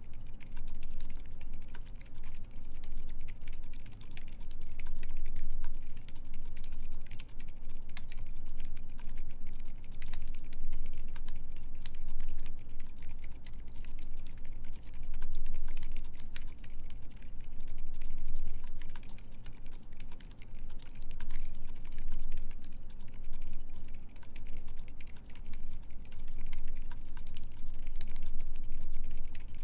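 Continuous typing on a Keycult 2/65 mechanical keyboard with lubed Silent Alpaca silent linear switches, GMK keycaps and a full aluminum plate: a quick, unbroken stream of muted keystrokes.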